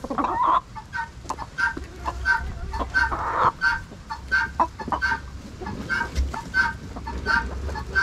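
Hens clucking as they feed, one call in an even series about three times every two seconds, with a few short clicks among them.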